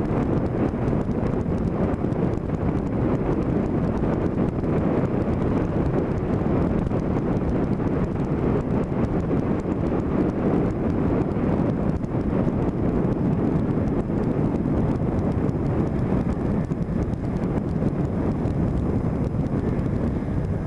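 Steady wind buffeting on the microphone over the low noise of a vehicle moving along a road at a constant speed.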